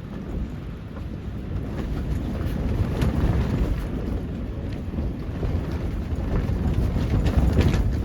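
Strong gusting wind buffeting the microphone with a heavy low rumble that swells and eases, with several brief sharp sounds about three seconds in and near the end.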